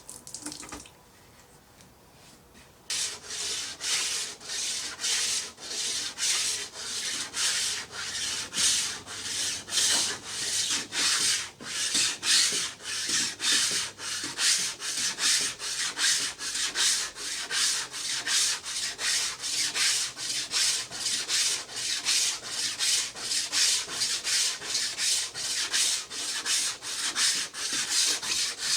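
Hand sanding of wood: abrasive rubbed back and forth in steady strokes, about two a second, starting about three seconds in.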